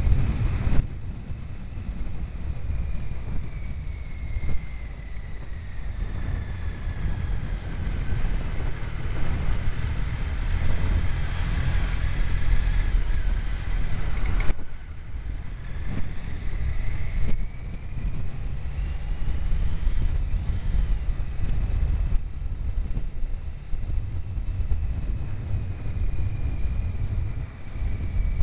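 Wind buffeting the moving camera's microphone: a heavy, unsteady low rumble, with a faint whine that slowly slides up and down in pitch.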